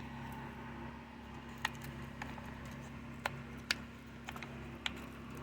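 About six light, sharp clicks and taps as a Stihl MS 250 chainsaw is handled and its tank caps checked, over a steady low hum.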